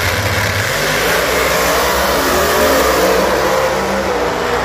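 Drag race cars launching off the line and accelerating hard down the strip, a loud engine noise whose pitch sinks slightly as they pull away.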